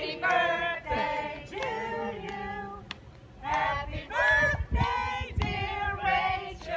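Several women's voices singing together, in phrases with a short break about halfway through.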